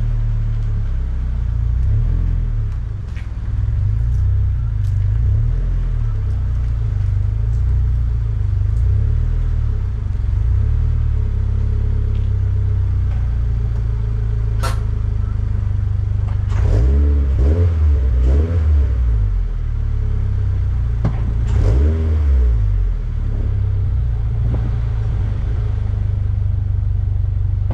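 Toyota GR86's 2.4-litre flat-four engine and exhaust idling steadily, then revved in two bursts of quick blips past the middle, pitch rising and falling each time. There is a single sharp click shortly before the first revs.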